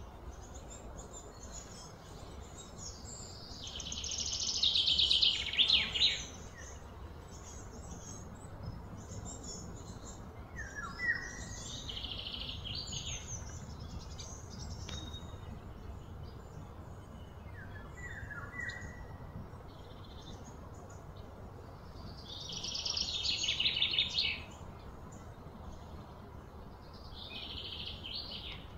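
Outdoor calls of small animals: four high, buzzing trills of a couple of seconds each, the first and third the loudest, with a few short falling chirps between them.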